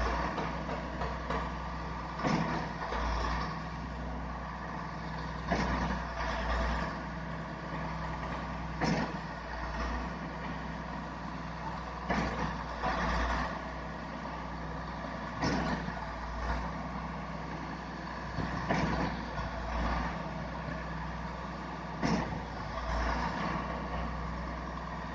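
Concrete pump truck running at a steady pace, its diesel engine droning, with a sharp clunk and surge about every three seconds as the pumping strokes change over.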